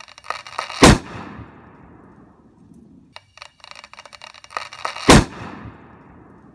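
Two loud bangs about four seconds apart, each a soccer ball bursting from over-inflation, with a short ringing decay; a run of sharp clicks comes before each bang.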